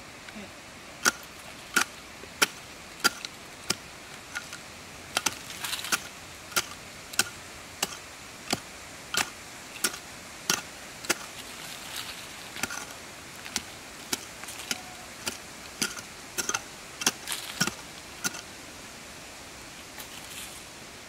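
A small short-handled pick chopping into dirt, a sharp strike about every half second to second with light scraping of loose soil between. The strikes stop near the end.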